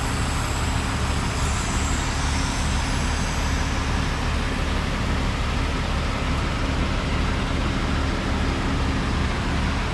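Mercedes-Benz six-cylinder V diesel engine idling steadily.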